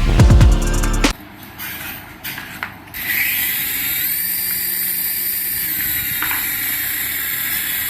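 A few clicks, then, about three seconds in, a small electric toy motor spins up with a brief rising whine and settles into a steady, high whirr.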